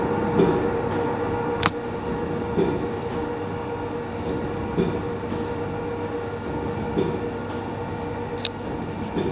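Crossley Brothers horizontal diesel mill engine running steadily, a continuous mechanical hum with a heavy beat about every two seconds as it turns over. Two sharp clicks stand out, one near the start and one near the end.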